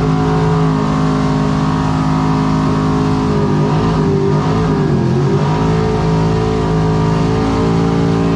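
Car engine held at high, steady revs during a burnout. The pitch dips briefly about halfway through, then climbs back.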